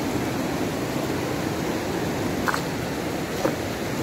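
River water rushing past, a steady even noise, with two small knocks about two and a half and three and a half seconds in.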